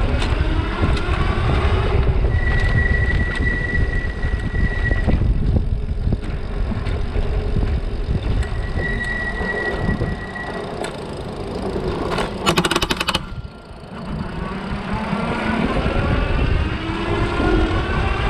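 Super73 RX electric bike's motor running under hard acceleration, its whine rising in pitch near the start and again near the end, over heavy wind and road rumble on a low-mounted camera. A steady high whine comes in twice, and a brief harsh rattling burst sounds about twelve seconds in, during the ride meant to capture the motor's grinding, which shows when leaning and gunning the throttle.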